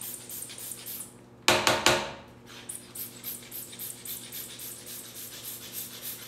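A hand glitter pump puffing in quick, even squeezes, about four a second, as edible glitter is sprayed onto a cake. About one and a half seconds in, a single loud, brief cry-like sound cuts over it.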